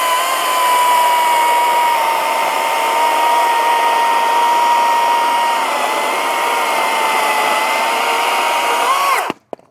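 CAT 60V brushless battery chainsaw cutting through a dry cherry log about 12 inches thick: a steady high electric whine over the rasp of the chain in the wood, sagging slightly in pitch under load midway. Near the end the whine rises briefly as the chain breaks through, then stops.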